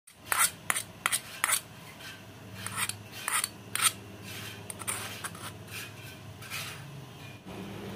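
Thin metal utensil scraping the inside of a small metal saucepan, working sticky cooked glutinous-rice-flour slime out of it: a series of short, sharp scrapes, the strongest in the first four seconds. Softer scrapes follow as the slime is worked on the plate.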